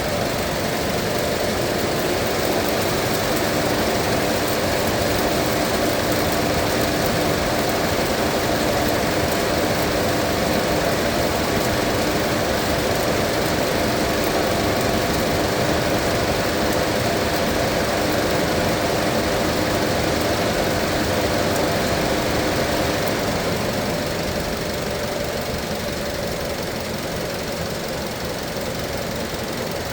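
Mazda 2.5-litre engine idling steadily and hot while air is bled from its cooling system. A continuous mechanical hum with a steady whine runs through it, easing a little about three-quarters of the way through.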